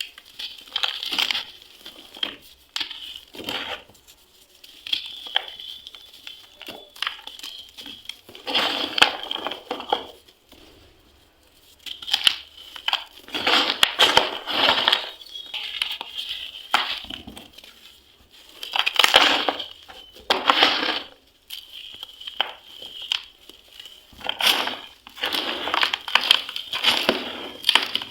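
Pieces of crunchy cement being crushed and crumbled by hand, in irregular crunching bursts with short pauses between them.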